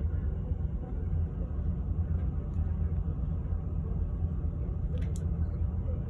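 Steady low rumble of a cruise ship under way at sea, with a couple of faint clicks about five seconds in.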